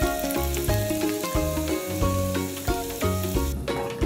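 Hot oil sizzling as onion pakoda batter fries in a miniature steel kadai, under background music with a steady repeating bass line. The sizzle cuts off suddenly near the end, leaving the music.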